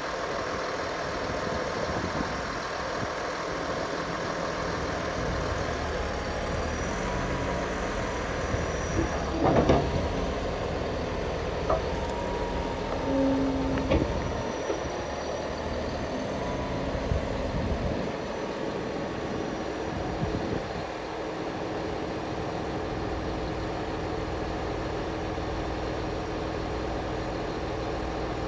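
A 2015 Caterpillar D6T LGP bulldozer's diesel engine idling steadily, with a few short knocks about a third of the way in.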